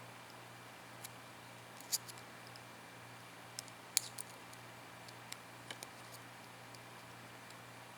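Small, sharp metallic clicks and ticks as worn steel gas rings are pried off an AR-15 bolt, about eight of them scattered through, the loudest two about two and four seconds in.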